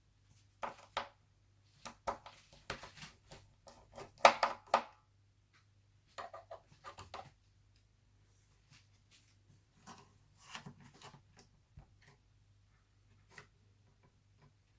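Irregular small clicks, taps and scrapes of a screwdriver and loose parts being handled while taking screws out of a laptop's case, coming in clusters and loudest about four seconds in, over a faint steady hum.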